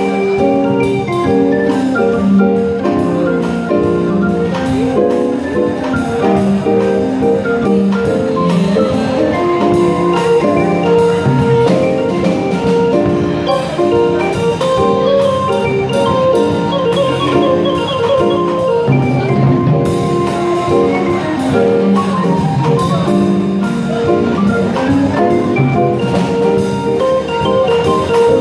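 Live band playing an upbeat jazzy tune, marimba notes over drum kit and keyboard.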